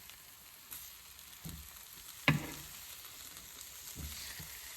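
Seasoned chicken thighs sizzling in a frying pan: a steady hiss, broken by a few light knocks of a utensil or the pan, the sharpest about halfway through.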